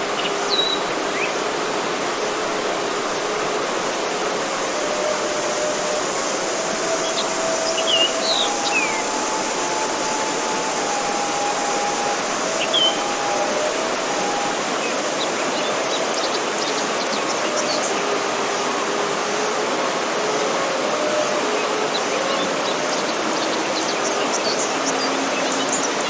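Forest stream rushing over rocks, a steady hiss of water. Beneath it a soft, slow suling (bamboo flute) melody of long held notes plays, and a few short bird chirps come through, the loudest about eight seconds in and again near thirteen seconds.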